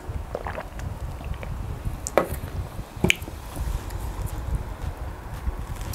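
Close eating sounds: a sip of juice, then a few short, soft wet squishes as fingers pinch off fufu and dip it into okro soup.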